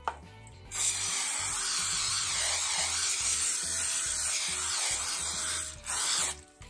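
Aerosol can of non-stick cooking spray hissing steadily for about five seconds as it coats a steel pan, then a second short spray near the end.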